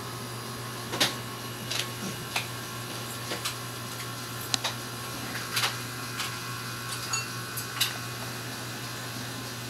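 Steady low hum of ice-cream shop machinery (soft-serve machines and refrigeration), with about a dozen scattered clicks and clinks as a worker handles things at the counter.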